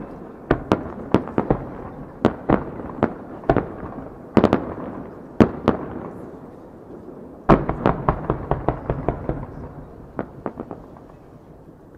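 Aerial firework shells bursting, a string of sharp bangs with a rumbling echo between them. About seven and a half seconds in comes a quick run of bangs, which thins out near the end.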